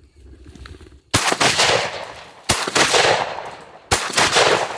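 Three shotgun shots fired in quick succession, about a second and a half apart, each loud and sharp with a short echo trailing off after it.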